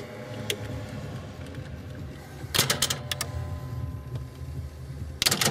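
NSM Mint coin-operated slot machine running: a steady low hum as its reels spin, broken twice by bursts of mechanical clatter, about halfway through and again at the end.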